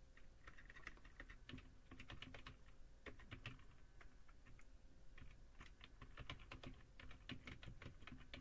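Computer keyboard typing: faint keystrokes in quick irregular runs with short pauses between them.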